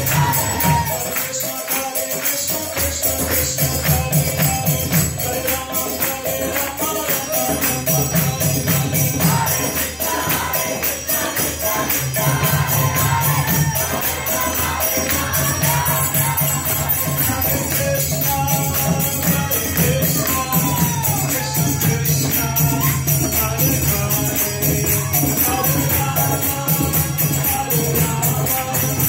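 Devotional kirtan: a group chanting together over steady jingling percussion.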